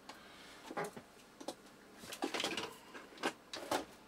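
Screwdrivers and hand tools being rummaged through: a scatter of light clinks and knocks at uneven intervals.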